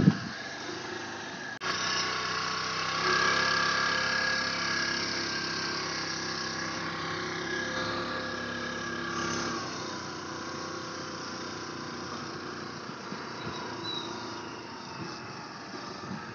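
Motor scooter's small engine running while ridden slowly over a rough dirt track. The engine note holds steady, then eases off about two-thirds of the way through. There is a sharp click about a second and a half in.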